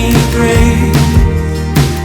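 Background song with drums and sustained instruments, a band playing with a steady beat.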